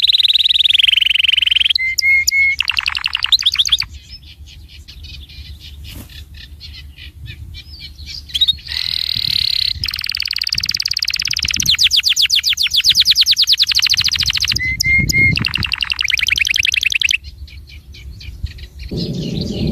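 A small songbird singing loudly in long bouts of very fast trills and rattles, with short whistled notes mixed in. There is a quieter stretch of a few seconds in the middle.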